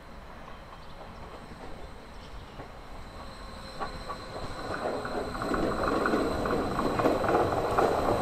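A Stadler KISS double-deck electric multiple unit in DB Intercity 2 livery approaching. Its wheel and rail noise grows steadily louder from about four seconds in, with scattered clicks from the rail joints.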